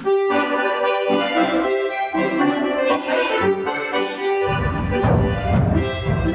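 Accordion music playing a folk dance melody for a barre exercise. About four and a half seconds in, a heavier, lower accompaniment joins in.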